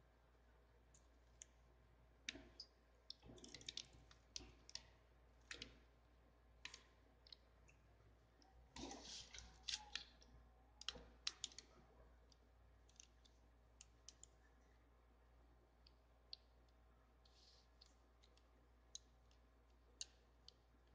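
Faint, irregular crackles and clicks of a crumpled sheet of notebook paper being handled and slid across a table, a busier patch of crackling about nine to ten seconds in, over near silence.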